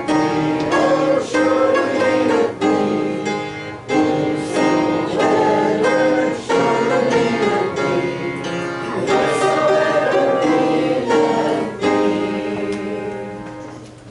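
Piano playing a hymn in full chords, the final chord dying away near the end.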